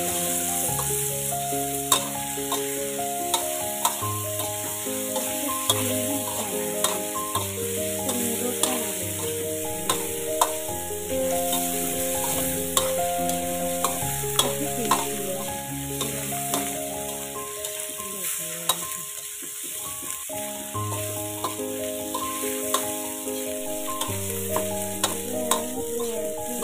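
Meatballs with garlic and chilies sizzling in hot oil in a wok, a metal spatula scraping and clicking against the pan as they are stir-fried. Background music with a slow melody of held notes plays throughout.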